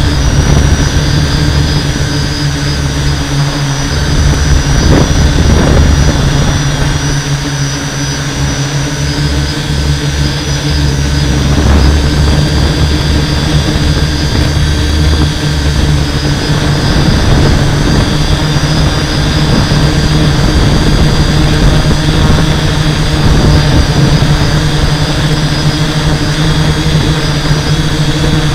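Six electric motors and 11-inch propellers of a HobbyKing 650X6 hexacopter hovering, a steady propeller drone with whine heard close on the onboard camera. A low rumble underneath is strong in the first half and fades after about 16 seconds.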